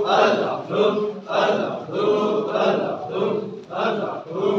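Men's voices chanting together in a rhythmic devotional chant, phrases repeating about once a second.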